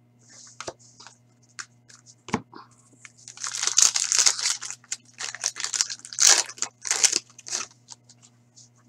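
Foil wrapper of an Upper Deck Series 2 hockey card pack being torn open and crinkled by hand, in several loud bursts of tearing from about a third of the way in until near the end. Before it come a few light clicks and one knock about two seconds in.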